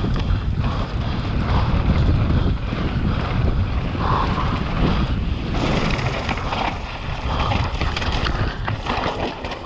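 Wind buffeting the microphone of a camera on a mountain bike riding fast down dirt singletrack, over the hiss of knobby tyres on dirt and frequent short rattles and knocks from the bike over bumps.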